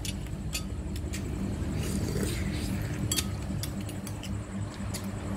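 Scattered light clinks of dishes and eating utensils over a steady low mechanical hum.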